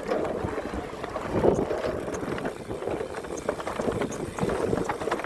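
Full-suspension mountain bike riding fast down a dirt singletrack: a steady rush of wind on the chest-mounted phone's microphone and tyre noise, scattered with small clicks and rattles from the bike.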